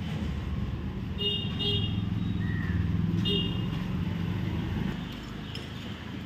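Street traffic: a motor vehicle's engine rumble swelling and then easing as it passes, with two short high toots about two seconds apart.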